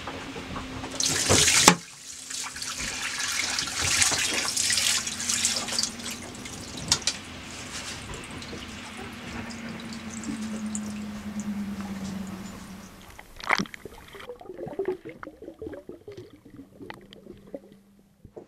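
Seawater rushing and spraying into a sailboat's bilge through the open propeller shaft stern tube while the shaft seal is being changed afloat, over a steady low hum. The rush eases off about 13 seconds in, leaving quieter splashes and knocks.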